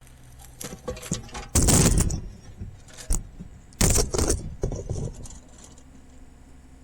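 Hard debris clattering as pieces are dropped or thrown onto a pile: a handful of small clatters and two loud crashes, the second followed by a few lighter knocks, then it settles.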